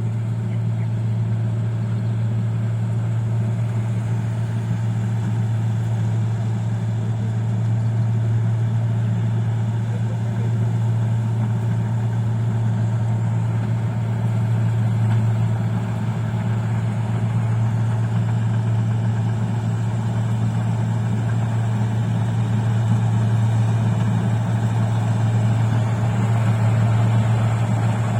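Rice combine harvester's diesel engine running steadily under load, a constant low drone with no change in speed.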